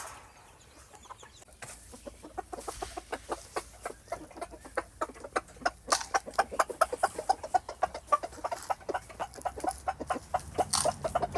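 Gamefowl chickens clucking in a quick run of short sounds, several a second, starting about two seconds in and growing busier.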